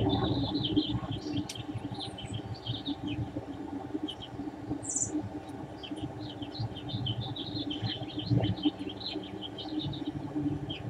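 Many short, high chirps and squeaks from small animals, one higher call about five seconds in, over a steady low rumble.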